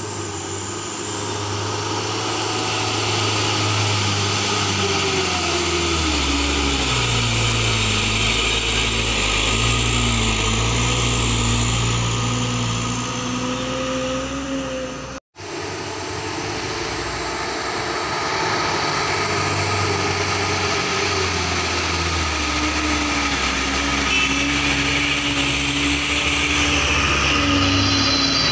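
Heavy diesel truck engines labouring up a steep climb, a loud steady drone whose pitch sinks twice as the engines slow under load. The sound drops out suddenly for a moment about halfway through.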